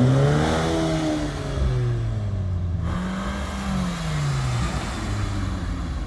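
A car engine revved twice: the note climbs quickly and falls away over about two seconds, then swells and drops back again, lower, a second later.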